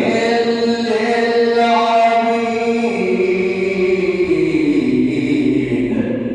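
A male reciter chanting the Quran, drawing out one long melodic phrase whose pitch steps down during the second half.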